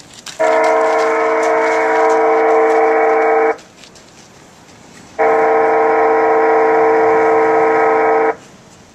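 Wayside horn, a horn loudspeaker at a rail pedestrian crossing, sounding two long steady blasts of a several-note chord, each about three seconds with a gap of nearly two seconds between. It is being tested for its warning sound level at the crossing.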